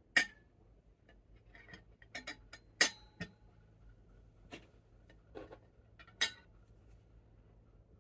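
Metal fork and knife clinking against a ceramic dinner plate: a handful of sharp clinks and taps, one leaving a brief ringing tone.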